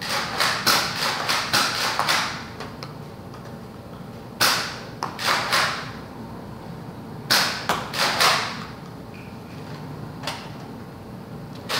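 Nerf dart blasters firing, sharp puffing shots in quick clusters with short pauses between.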